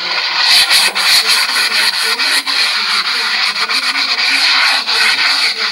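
Steady hand scrubbing and rubbing of a soot-stained surface sprayed with fireplace cleaner, in quick short strokes.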